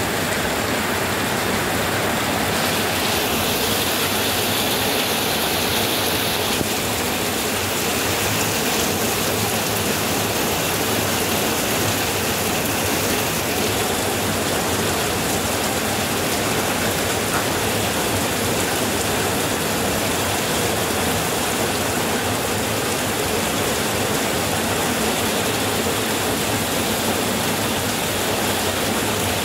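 Heavy rain pouring down steadily, a dense, even hiss of water.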